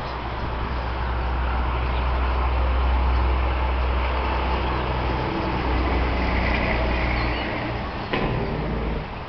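A vehicle engine's low rumble swells over the first few seconds and eases off near the end, over the chatter of a starling flock. There is a single sharp knock about eight seconds in.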